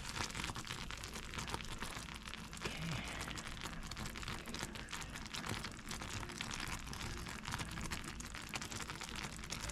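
Butter toffee mixture of butter, sugar and corn syrup boiling in a pan, a steady fine crackling and bubbling from the hot candy syrup at about 240°F on its way to hard crack.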